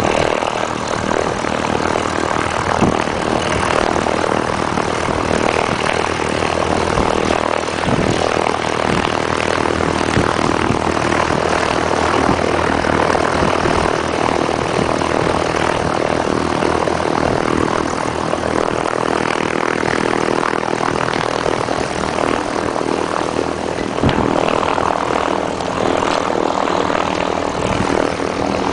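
Light propeller aircraft's piston engine running steadily at a constant speed, a continuous engine drone with a hiss of propeller wash over it.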